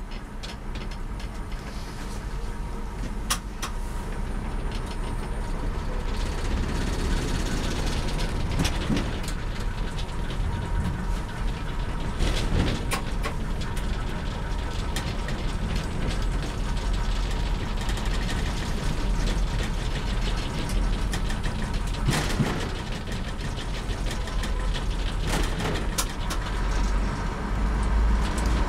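Class 101 diesel multiple unit running, heard from on board: the steady drone of its underfloor six-cylinder diesel engines grows louder over the first several seconds, then holds, with scattered sharp clicks.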